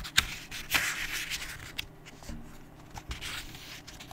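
Paper rustling from the pages of a book being handled, with one louder swish about a second in, a fainter one later, and a few small clicks and taps.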